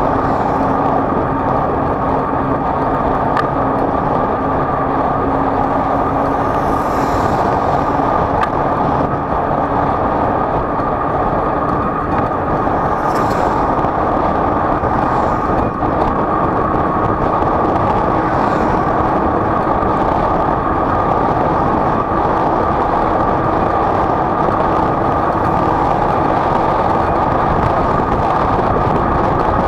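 A vehicle travelling at steady speed: a continuous engine hum under steady wind and road noise, the hum rising slightly in pitch about seven seconds in.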